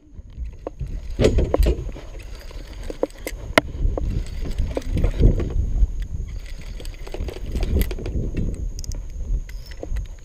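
Handling noise on an action camera: a low, uneven rumble with scattered knocks and clicks as the housing is rubbed and bumped, over a faint steady high whine.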